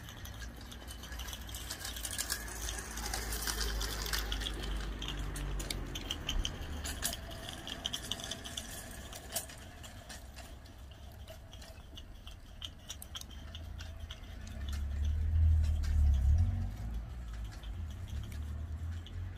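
Bassett-Lowke Enterprise live-steam model locomotive running on its track: steam hissing with many quick clicks, strongest in the first few seconds. Underneath is a low rumble that swells to its loudest about fifteen seconds in.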